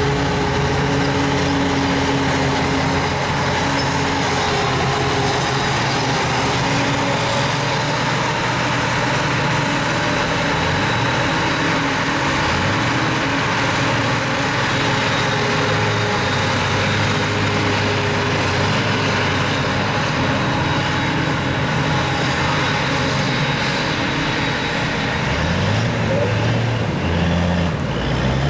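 A Claas Jaguar forage harvester is running at work chopping grass, with a tractor engine running alongside: a steady engine drone over a dense rushing noise. Near the end a tractor engine rises in pitch as it pulls the loaded silage trailer past.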